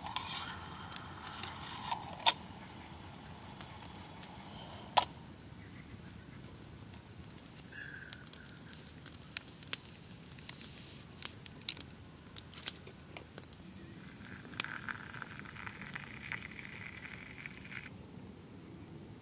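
Scattered sharp crackles and snaps over a faint steady hiss, with two louder snaps in the first five seconds.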